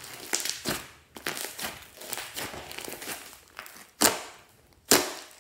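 Glossy slime mixed with small foam beads being squeezed and stretched by hand, with wet squishing and crackling. Two sharp pops about four and five seconds in come from air pockets bursting as the slime is pulled apart.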